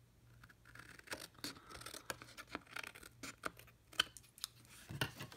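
Paper snips cutting along the edge of a cardstock panel: a quick run of short, crisp snips with some paper rustle.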